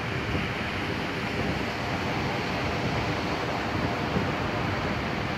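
Ocean surf breaking and washing up on a beach in a steady wash of noise, with wind on the microphone.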